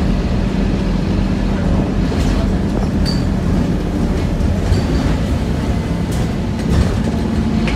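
Cabin noise inside a moving Scania OmniCity single-deck bus: the diesel engine's steady low hum under road rumble, with light rattles from the bodywork and fittings. Two short high-pitched squeaks come about three and five seconds in.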